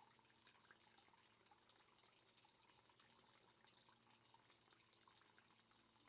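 Faint water trickling and dripping into a garden fish pond, many small irregular drips.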